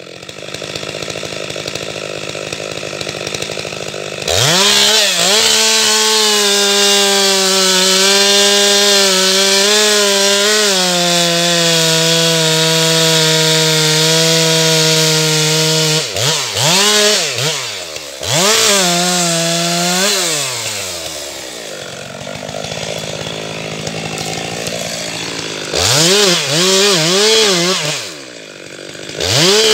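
Chainsaw idling, then held at full throttle in a long cut from about four seconds in, its pitch dropping partway through. After that it is revved up and down in quick blips, runs quieter for a few seconds, is blipped again, and goes back to full throttle near the end.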